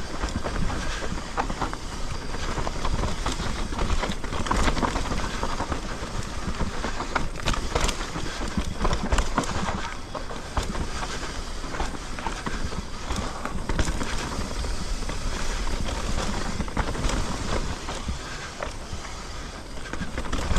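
Mountain bike rolling down a rough, loose trail: tyres grinding over rock and gravel, with a constant stream of small knocks and rattles from the bike, over a low rumble of wind on the microphone.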